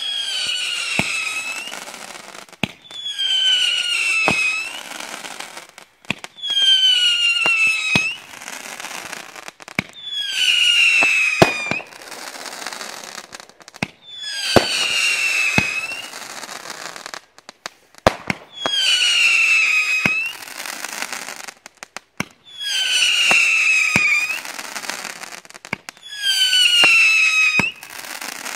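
Winda 'Ghost Animal' 25-shot firework cake firing shot after shot. Each shot gives a falling whistle lasting about two seconds, with sharp pops between, about one shot every four seconds.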